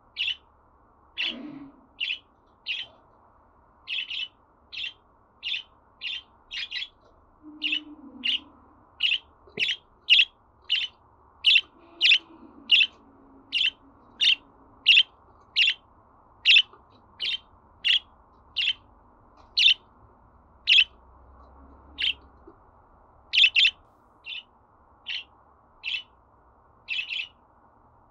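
Budgerigar giving short, sharp chirps in a long, fairly even series, roughly one or two a second, now and then two in quick succession.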